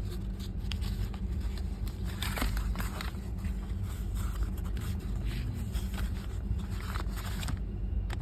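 Steady low rumble of a passenger train running, with scattered light clicks and scrapes over it.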